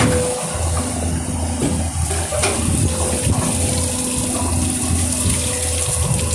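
Clamshell-bucket excavator working sand off a barge: its engine runs steadily under a rushing noise like water or wet sand pouring, with a brief knock about two and a half seconds in.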